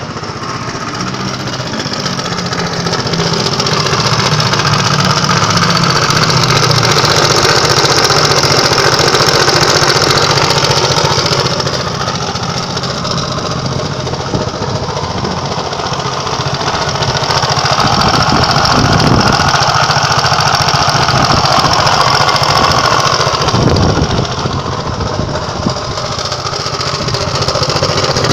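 KYMCO Racing King 180 scooter's SC36AE single-cylinder four-stroke engine running and being revved up and back down twice, with knocking in it. The uploader puts the abnormal noise down to a shattered camshaft bearing and takes it as a warning sign of the cylinder seizing.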